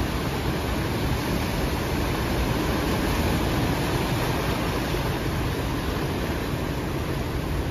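Ocean surf washing in over and around shoreline rocks: a steady, churning rush of water with no separate wave crashes standing out.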